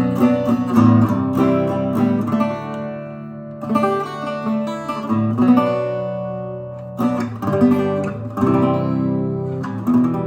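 1950s French Patenotte acoustic guitar being played, strummed chords and picked notes ringing out. A last chord is struck near the end and left to ring.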